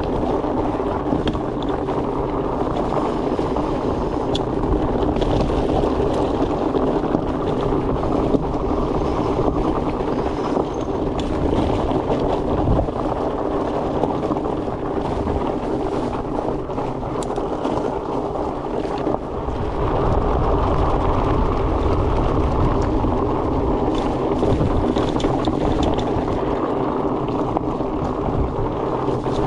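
Fat-bike tyres rolling on a dirt trail with a steady droning hum, mixed with wind rushing over the microphone. It gets a little louder about two-thirds of the way through.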